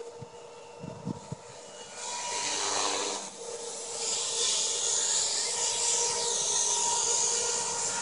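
Compass Warp 360 electric RC helicopter in flight: a steady motor and gear whine under rotor blade noise, which grows louder about two seconds in and again from about four seconds.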